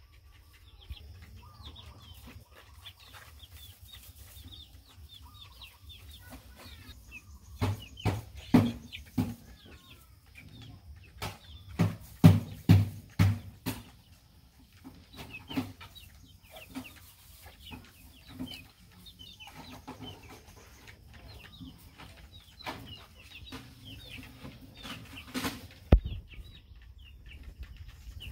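Young chickens peeping softly and continuously, with a few clusters of louder short clucks or knocks about eight seconds in, again around twelve to thirteen seconds, and once near the end.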